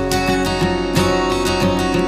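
Background music with a steady rhythm.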